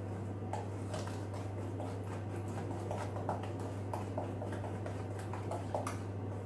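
Wooden spatula stirring thick chocolate brownie batter in a stainless steel bowl, with faint, irregular scrapes and light taps against the metal, over a steady low hum.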